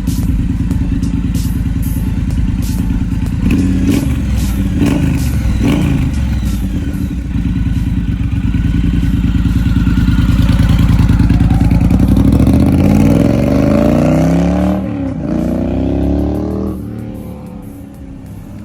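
2020 Triumph Bobber's 1200 cc parallel-twin engine running through a newly fitted British Customs turnout performance exhaust. It idles, is blipped three quick times, then pulls away with the pitch climbing through the gears, and fades near the end.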